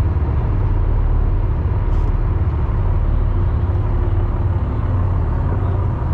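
Boat engine running steadily underway, a continuous low rumble with water and wind noise over it.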